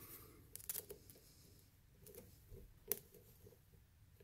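Faint scattered clicks and light scraping of a steel lock pick working the pins of a pin tumbler lock under very light tension, with a louder single click about three seconds in.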